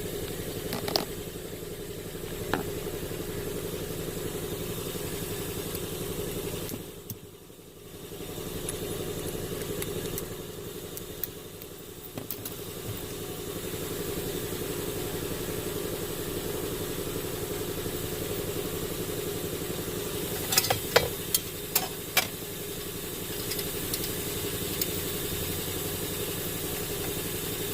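Steady hum and hiss of a car idling, heard from inside the cabin, with a brief dip about seven seconds in. Scattered sharp clicks and taps of hand tools on the trim come through it, with a quick cluster about twenty seconds in.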